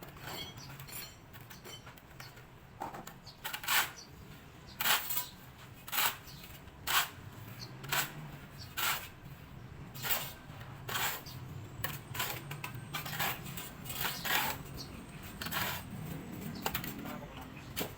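A metal tool, such as a shovel or trowel, scraping and clinking as it works a concrete mix, in short strokes about once a second.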